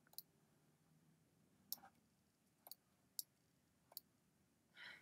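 Faint, scattered clicks from working a computer's mouse and keyboard: about five sharp single clicks roughly a second apart, with a brief soft hiss near the end.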